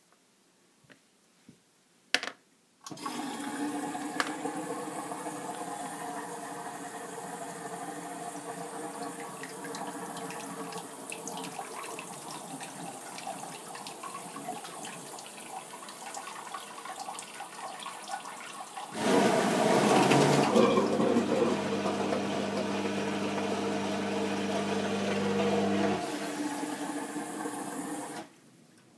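Macerating toilet (sanibroyeur) flushing: a sharp click, then water rushing steadily into the bowl for about 25 seconds. About 19 seconds in, a louder steady motor hum joins the water, which is the macerator's pump running. It cuts off about seven seconds later, shortly before the water stops.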